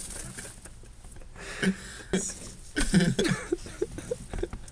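A man stifling laughter in short bursts: a louder burst about three seconds in, followed by a run of quick short pulses.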